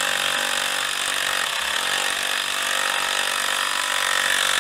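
Handheld cordless power tool running a nut down onto an exhaust manifold stud: a steady motor whine that cuts off suddenly at the end, when the nut stops.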